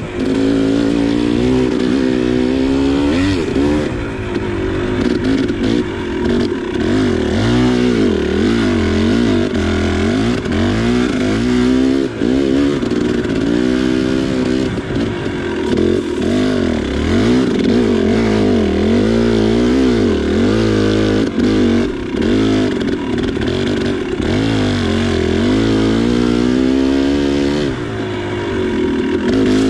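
2019 KTM 300 XC's two-stroke single-cylinder engine revving up and down continuously as the throttle is worked. Its pitch rises and falls every second or two.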